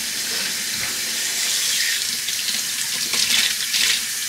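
Kitchen faucet running into the sink as dishes are washed under the stream, with uneven splashing that grows louder about three seconds in.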